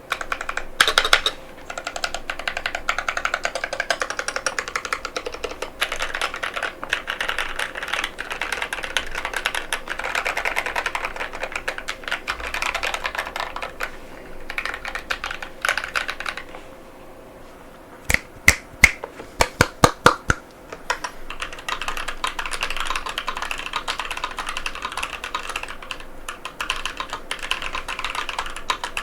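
Fast, continuous typing on a NovelKeys NK87 aluminium mechanical keyboard with KTT Matcha tactile switches, a steady clatter of keystrokes. About two-thirds of the way through the typing pauses briefly, then a few louder, separate key strikes come before the fast typing picks up again.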